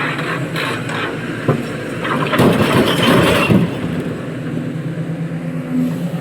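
Heavy diesel engine of construction machinery running steadily, with a loud, rough burst of noise lasting about a second, starting about two and a half seconds in.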